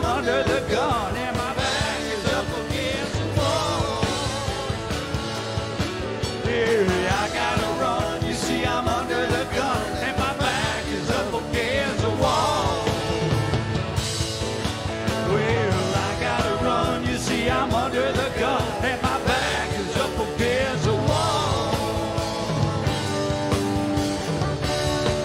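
Live band playing a country-rock song: electric guitar, pedal steel guitar and drum kit.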